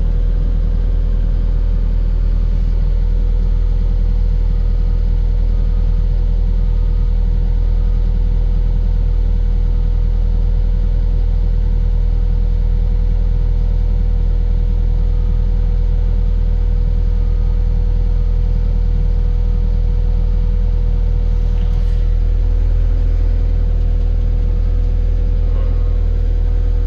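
Diesel engine of a new Caterpillar 255 skid steer running steadily at working throttle while the machine travels, with a constant whine over the low engine rumble.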